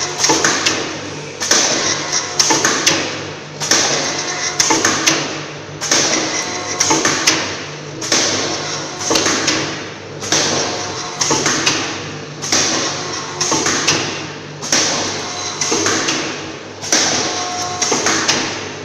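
Hair dye and shampoo sachet packing machine running, cycling about once a second: each cycle is a quick cluster of mechanical clacks and knocks that fades before the next, over a steady hum.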